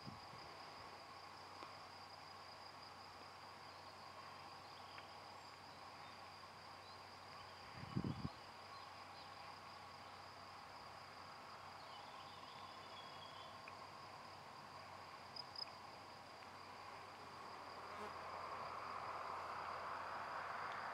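Steady high-pitched insect trill, one unbroken tone, with a dull bump about eight seconds in and a soft rushing noise swelling near the end.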